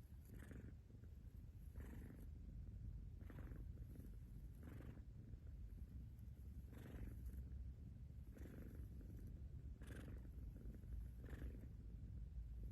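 Domestic cat purring: a soft, low rumble that swells with each breath, about every second and a half.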